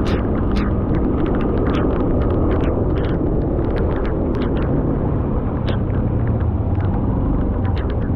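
Rain, with scattered drops tapping sharply close by over a steady low rumble.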